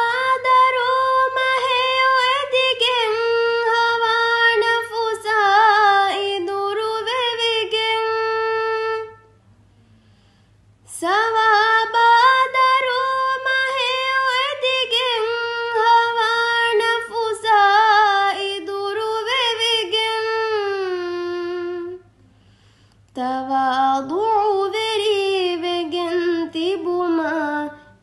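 A single high voice singing a Ramadan song in long, ornamented phrases that glide between notes, with two short pauses, one about a third of the way in and one near the end.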